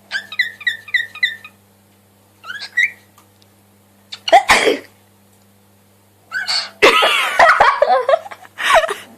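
Parrot calling: a quick run of about five short chirps, then a single short call. A loud harsh squawk follows, and near the end a longer stretch of loud, wavering squawks and screeches.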